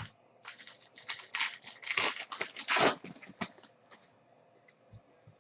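Plastic foil wrapper of a trading-card pack torn open and crinkled in the hands, a dense crackle lasting about two and a half seconds, followed by a few light clicks of cards being handled.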